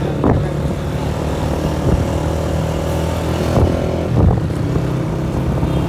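Motorcycle engine running steadily at cruising speed, heard from the pillion seat, with a couple of brief knocks near the middle.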